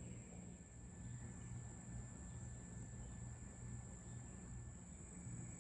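Faint, steady, high-pitched chorus of summer insects, over a low rumble.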